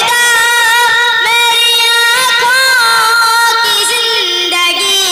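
A boy singing a naat, an Urdu devotional song, solo into a microphone, holding long notes that bend and waver in pitch.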